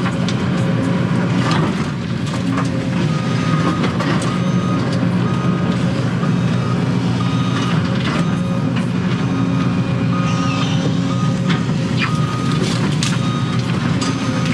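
Excavator's diesel engine running steadily under digging load, heard from inside the cab, with knocks and scrapes as the bucket works dirt and rock. A backup alarm beeps about once a second from about two seconds in.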